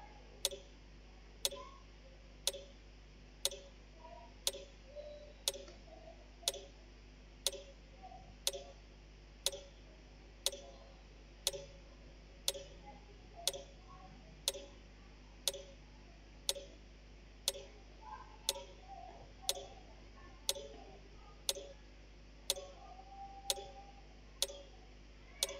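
Clock ticking steadily at about two ticks a second, alternating stronger and weaker ticks in a tick-tock pattern.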